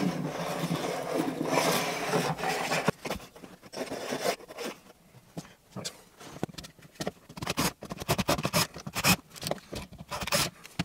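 Hand tools worked against a plasterboard wall around a socket box: a few seconds of scraping, then scattered clicks and taps as a tool is taken from a tool pouch and a screwdriver is worked into a knockout hole.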